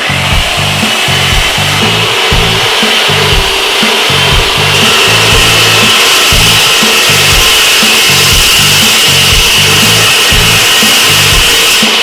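A 355 mm metal cut-off saw, loud and steady, cutting metal. Its hiss grows brighter about five seconds in. A music track's beat runs underneath.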